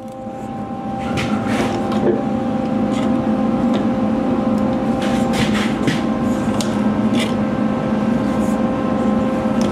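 Sheet-metal shrinking machine running with a steady hum that builds up over the first second, with a few light clicks as the steel strip is worked in its shrinking jaws.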